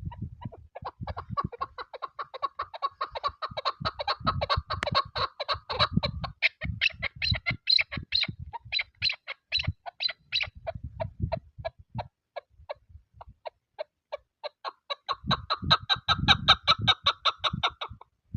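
Chukar partridge calling a fast run of clucking notes, several a second, thinning out about two thirds through, then a second dense run near the end. Wind buffets the microphone with low rumbling thumps underneath.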